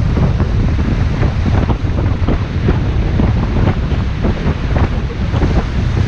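Rushing whitewater of the Indus river around an inflatable raft, with frequent short splashes. Heavy wind rumble on the microphone runs underneath.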